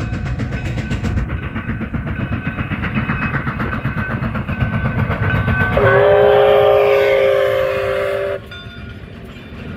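Steam locomotive CPKC 2816 running, then a chime whistle blown once for about two and a half seconds, starting about six seconds in: a chord of several tones that swoops up slightly as it opens and cuts off sharply.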